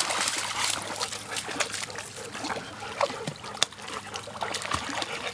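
Water sloshing and trickling as a golden retriever puppy wades through shallow lake water, with scattered small splashes.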